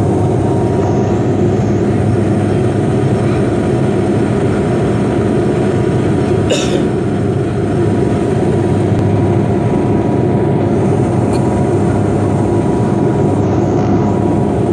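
Inside the cabin of a Bombardier Dash 8 Q400 turboprop descending on approach with its landing gear down: the engines and propellers make a loud, even drone with a steady low hum. There is one brief click about six and a half seconds in.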